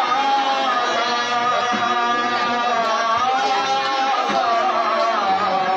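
Male singer in a high, powerful voice (pahadi awaz), accompanied by a harmonium holding steady chords under the wavering melody: a song from a Konkani Dashavatar folk-theatre performance.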